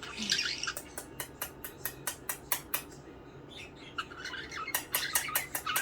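Pet budgerigars chirping and warbling softly. A quick run of sharp clicks at about three to four a second is heard through most of it, and the chatter grows busier near the end.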